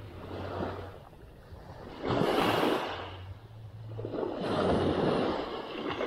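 Small waves breaking and washing up on a sand beach, swelling and ebbing: one sudden loud surge about two seconds in and a second, slower swell near the end.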